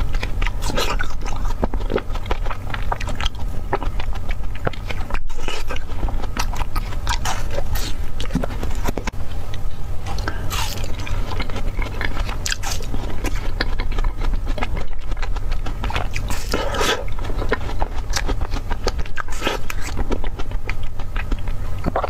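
Ice cream bars being bitten and chewed close to the microphone: many short, crisp crunching bites and chewing, over a steady low hum.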